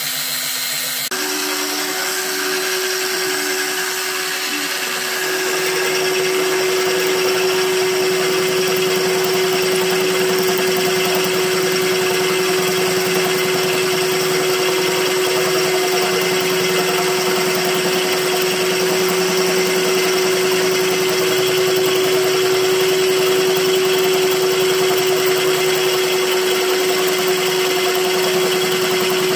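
Electric drill (Craftsman) turning a homemade line-boring bar, running steadily with a constant whine while the cutter takes rough cuts in a weld-built-up cast-iron bearing bore of a windmill head. The drone steps up a little in loudness about a second in and again around five seconds.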